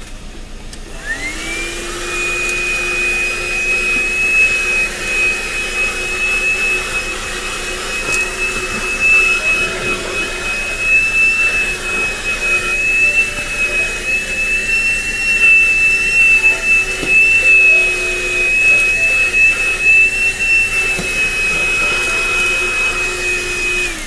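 ThisWorx 106W 12-volt handheld car vacuum starting up about a second in, its motor whine rising to a steady high pitch, then running as the nozzle works over a carpeted floor mat. The motor spins down with a falling whine at the very end.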